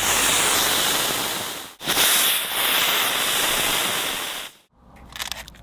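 Small spark-spraying fireworks burning with a loud, steady hiss. The hiss breaks off for an instant just under two seconds in, then dies away after about four and a half seconds, leaving a few faint ticks.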